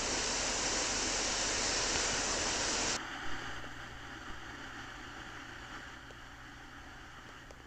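River water rushing, a steady hiss that cuts off suddenly about three seconds in. A much fainter hiss follows and slowly fades.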